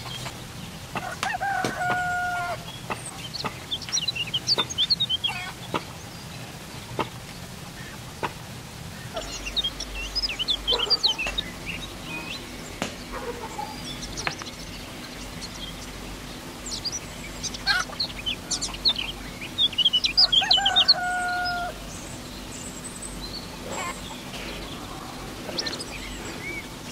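Chickens and small birds calling: scattered short chirps and clucks, with a longer held two-note call about a second in and again near twenty seconds in. A low steady hum sets in about nine seconds in.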